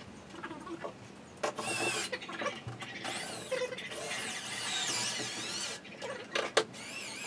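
Cordless drill-driver running in stretches, its whine rising and falling in pitch as it drives screws into particleboard furniture panels, with a few sharp knocks.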